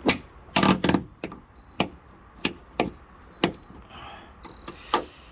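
Plastic trim push clips being pried and popped out of a car's trunk lining: an irregular series of sharp clicks and knocks, loudest in the first second.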